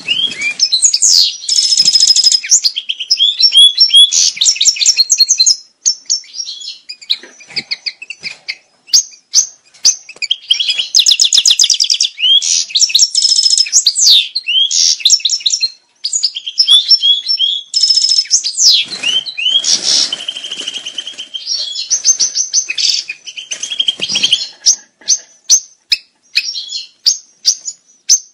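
European goldfinch singing its breeding-season song: rapid twittering and trilled phrases with quick pitch glides, delivered in long runs broken by short pauses.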